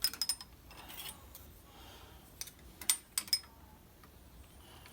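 Sharp metallic clinks of a steel Model T transmission band and its clips being handled and fitted against an old drum while being shaped into a circle: a few clinks at the start and a couple more about three seconds in.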